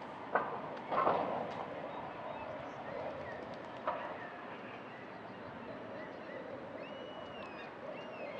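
Birds calling by a river: a few short, harsh calls in the first second and again about four seconds in, then thin whistled glides near the end, over a steady background rush.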